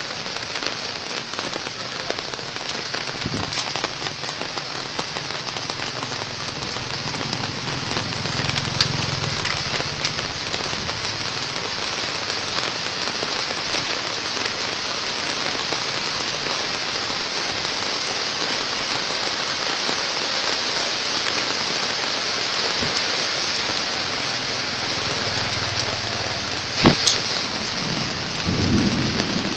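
Heavy rain pouring steadily, with one sharp crack about 27 seconds in and a low rumble near the end.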